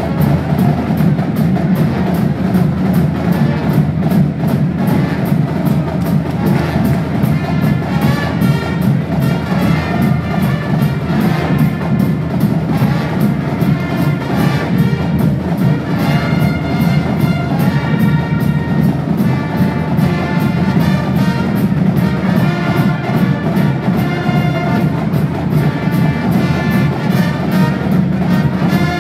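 Pep band playing in a gym: a brass section of trumpets, trombones and sousaphone carries the tune over a steady drum beat, the brass melody coming in stronger about a third of the way through.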